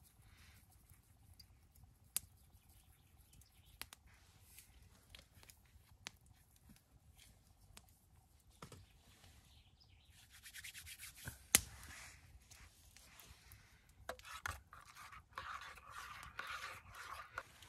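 Faint rustling and scraping handling noise in two stretches, one about ten seconds in and one near the end, with scattered clicks and one sharp click about eleven seconds in.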